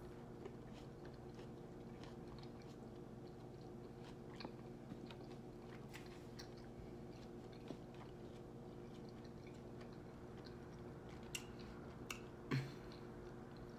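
Close-up quiet chewing of a soft tortilla veggie wrap, with small wet mouth clicks and a louder smack near the end, over a steady low hum.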